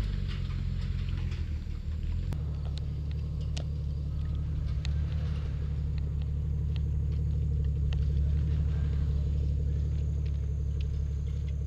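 A motor vehicle's engine running as a steady low rumble, its note shifting about two seconds in. A few faint ticks sound here and there over it.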